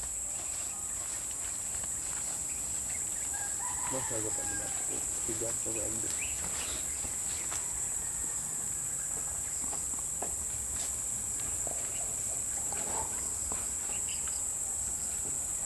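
A rooster crows once, about four seconds in, over a steady high-pitched drone of insects.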